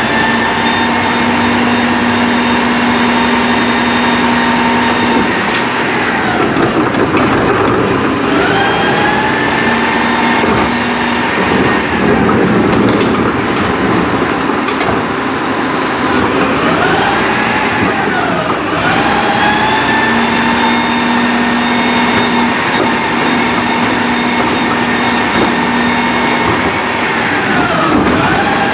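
A rear-loading garbage truck's engine and hydraulic pump whine glide up in pitch, hold, and then fall back, about four times over, as the packer cycles. There is a rougher rattling stretch in the middle.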